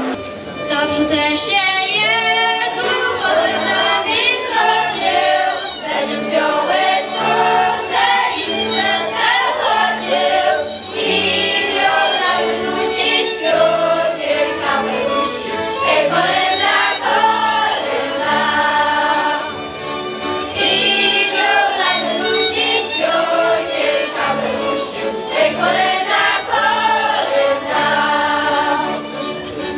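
Mixed choir of children and adults singing together, accompanied by accordion and double bass, the bass giving a steady pulse of low notes under the voices.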